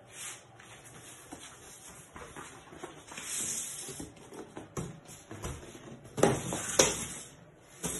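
Flat cardboard box being handled: its panels sliding and scraping, with a few short knocks, and a louder stretch of bumps and rubbing about six seconds in.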